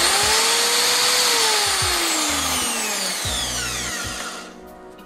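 Corded hammer drill's brushed motor running at full speed, then released about a second in and winding down to a stop over about three seconds, its pitch falling. A test run after reassembly with cleaned, lubricated gearing and repaired brushes.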